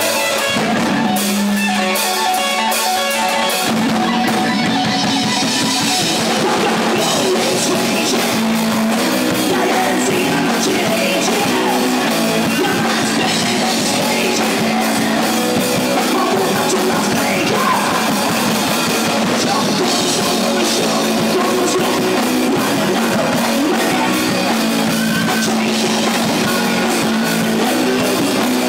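Live rock band playing loud: distorted electric guitar, bass and drum kit, with a male vocalist singing into a handheld microphone. The guitar leads alone at first, and the drums and bass come in about three seconds in.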